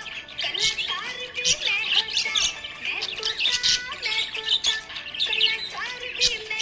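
Budgerigars chirping and warbling: a dense, unbroken stream of quick high chirps and short gliding whistles.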